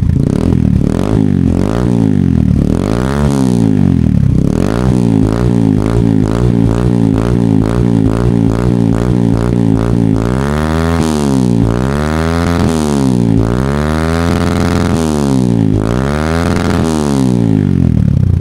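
Yamaha XTZ125's single-cylinder four-stroke engine revving through a Yoshimura carbon slip-on exhaust with a pre-silencer. There are a few blips, then a quick run of short revs, then about four longer revs in the second half.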